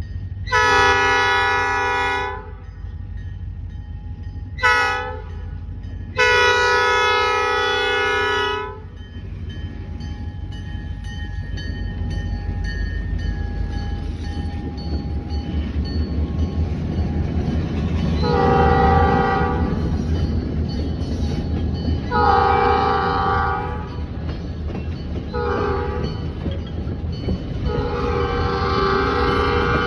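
Diesel locomotive air horn sounding over the low rumble of the approaching train: a long, a short and a long blast, then after a pause long, long, short, long, the grade-crossing signal. The engines' rumble builds as the slow train draws nearer.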